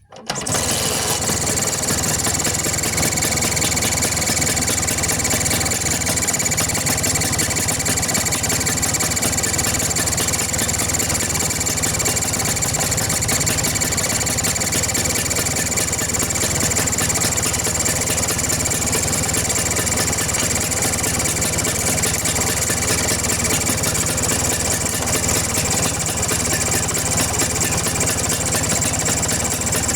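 Vespa two-stroke scooter engine starting up abruptly and running steadily at idle with its carburettor cover off. It carries the strange noise that the mechanic takes for a leak around the carburettor.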